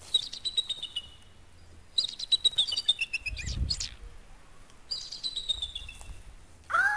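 Birds singing: three short phrases of quick high chirps, each sliding down in pitch. Near the end a louder, lower call drops in pitch and takes over.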